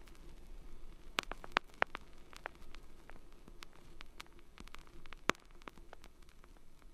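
Scattered irregular clicks and crackles, a few sharper ones about a second in and past the five-second mark, over a faint steady hum and low rumble.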